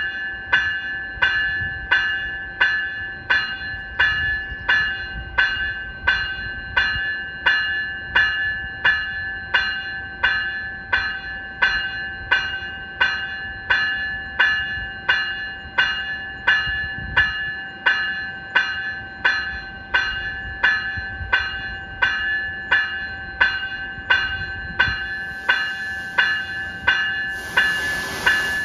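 Graham-White electronic locomotive bell on an NCTD Coaster cab car ringing steadily, about three strokes every two seconds, each a high-pitched ring that dies away before the next. A burst of hiss joins in near the end.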